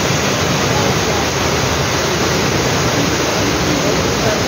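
Heavy rain pouring down with floodwater rushing in the street: a loud, steady, even hiss.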